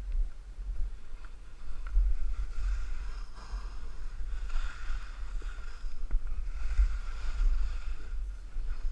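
Wind rumbling steadily on an action camera's microphone during a downhill run on snow, with the hiss of edges scraping the snow swelling up twice, as in two turns.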